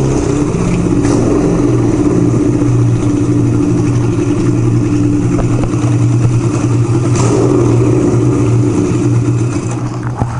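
1975 Kawasaki KZ400 parallel-twin motorcycle engine running steadily at low revs, its exhaust loud and echoing in a concrete parking garage, with the level dropping off near the end.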